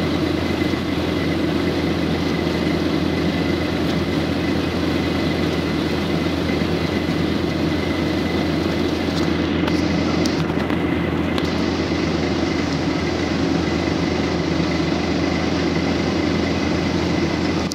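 PAZ-32053 bus engine running steadily under way, heard from inside the cabin as a constant low drone with a thin steady high whine above it.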